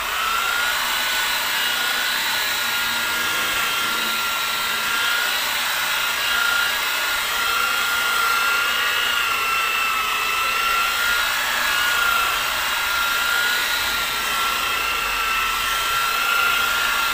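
Electric rotary polisher running steadily on a low speed setting, a high, even motor whine that winds up at the start. Its buffing pad is working rubbing compound into the paint to cut out fine sanding marks on a repainted panel.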